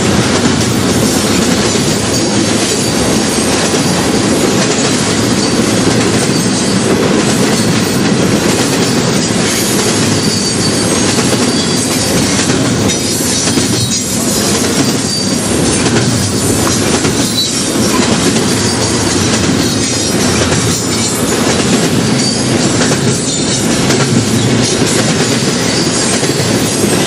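Norfolk Southern freight train's cars rolling past, a steady noise of steel wheels on rail with no horn.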